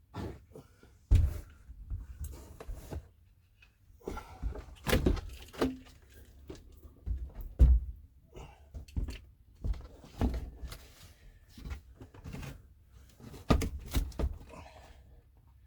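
Irregular knocks, thumps and rustles of hands-on work on a camper van's dashboard in the small cab; the sharpest thumps come about a second in and just past the middle.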